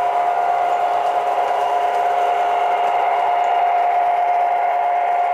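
MTH Premier F-3 diesel model locomotive set with Proto-Sound 2.0 running past on O-gauge track: a steady, unchanging whine over the train's running noise.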